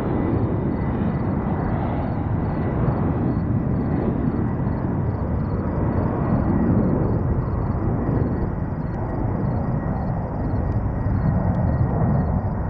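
Jet engines of an Airbus A320 on final approach, a steady low rumble. A faint high whine fades out about two seconds in as the airliner moves away.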